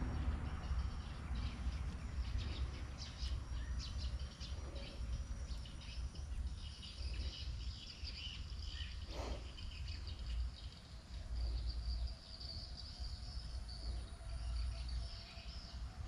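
Swamp ambience: high chirping and buzzing of birds and insects over a low, uneven rumble.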